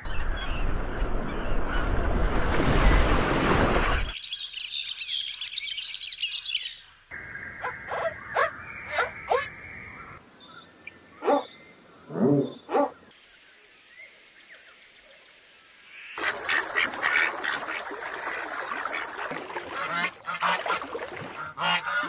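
A string of short bird-sound clips: a loud rushing wash of water for about four seconds, then high chirping and scattered bird calls, and in the last six seconds a flock of ducks quacking.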